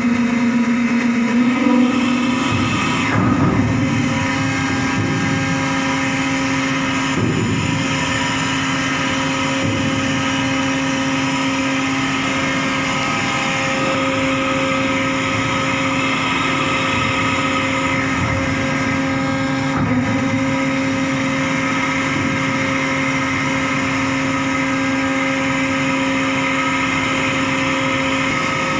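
Ship's deck machinery running with a steady, even hum, its pitch stepping up slightly about three seconds in.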